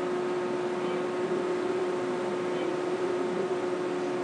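Steady machinery hum: one constant mid-pitched tone with fainter steady overtones over an even hiss, unchanging throughout.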